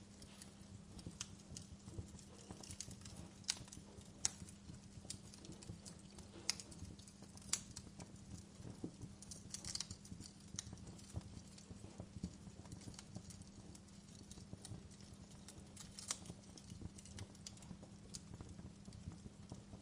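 Wood fire crackling: irregular sharp pops and snaps, a few louder than the rest, over a steady low hum.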